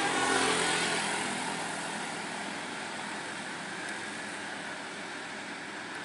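Road traffic: the engines and tyres of buses and cars moving along the road, a steady rush of noise that slowly fades.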